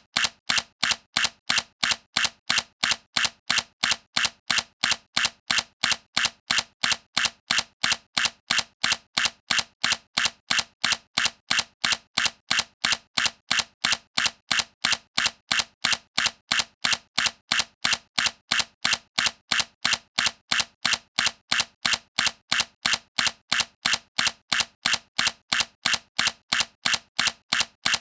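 Sony A7C mirrorless camera's mechanical shutter firing again and again, one crisp click after another at an even pace of about two to three a second.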